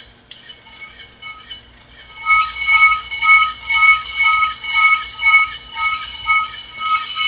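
Repeating electronic beeping tones, a short two-pitch pattern about twice a second, starting about two seconds in and going on steadily.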